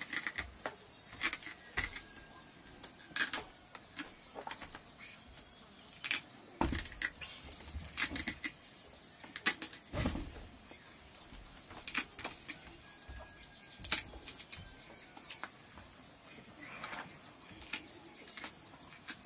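Knife cutting a green vegetable held in the hand: irregular crisp clicks and snaps, with a couple of duller thumps about six and ten seconds in.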